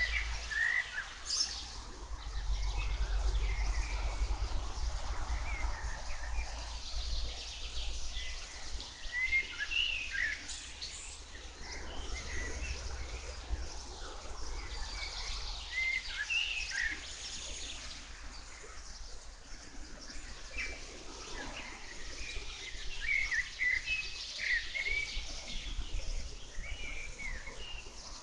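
Several birds chirping and singing in short, scattered calls throughout, over a steady low rumble that is strongest in the first third.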